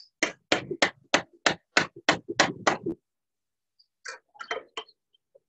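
A quick run of about nine sharp metal knocks, roughly three a second, as a diesel injector nozzle holder clamped in a bench vise is tapped. A few fainter clicks of handling follow near the end.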